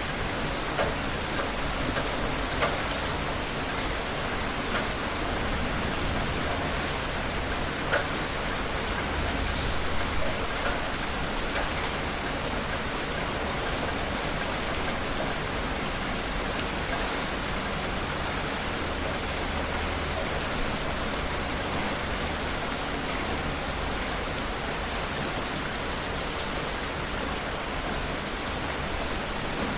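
Heavy rain falling steadily, with a few sharper, louder drop impacts in the first dozen seconds.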